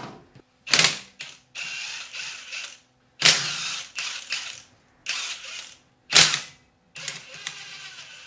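Ratchet wrench spinning out the motorcycle's clutch cover bolts in several short runs, with a few sharp clacks among them.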